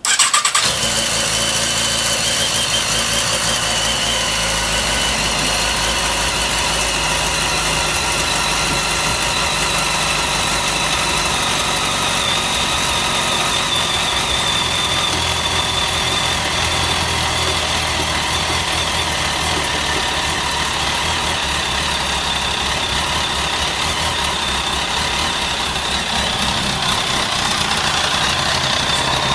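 Kawasaki ZX-10R inline-four engine starting on the electric starter at the first press, then idling steadily. The idle stays even, with no abnormal noise.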